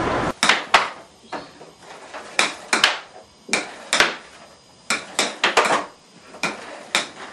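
A string of irregular sharp clinks and knocks of hard objects being handled, some coming in quick clusters of two or three, with short ringing tails.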